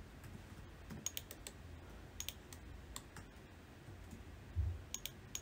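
Faint computer keyboard typing: scattered single keystrokes and clicks as number values are entered, with a soft low thump about four and a half seconds in.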